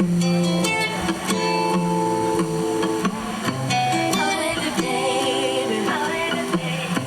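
Music: a guitar playing held, changing chords as the introduction to a song, with a voice singing briefly in the middle.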